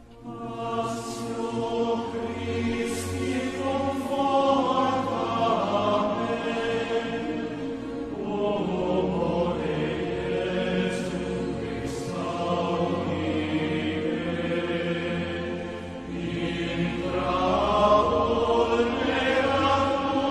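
Voices singing a slow hymn in long held notes over a sustained low accompaniment. The bass note changes every few seconds.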